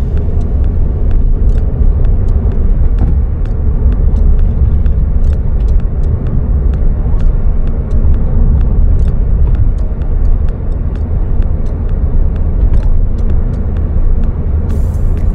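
Suzuki Swift Sport ZC32S driving along, a steady deep rumble of engine and road noise with many light irregular ticks.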